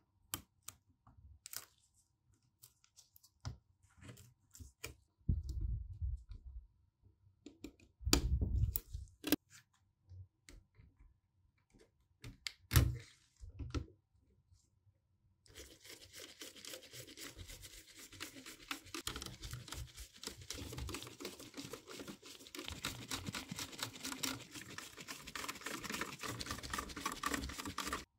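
Small plastic parts and connectors of an opened laptop being handled, with scattered clicks and a few louder knocks. About halfway through this gives way to adhesive tape or film being slowly peeled, a dense continuous crackle.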